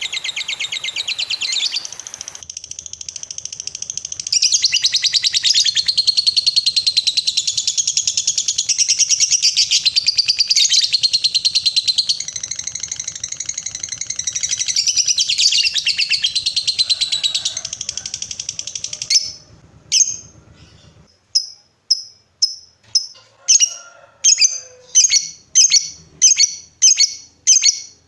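Lovebird 'ngekek': a long, rapid, high-pitched chattering trill. About nineteen seconds in it breaks off into a run of short separate chirps, about two a second.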